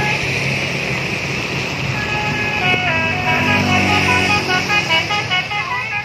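A bus's 'telolet' Basuri multi-tone horn plays a melody of several notes stepping up and down, starting about two and a half seconds in, over the low, steady running of a vehicle engine.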